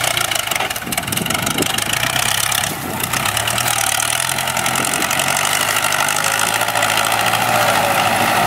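Ford 6610 tractor's diesel engine running steadily as the tractor drives with a load of sugarcane in its grab loader, getting a little louder near the end.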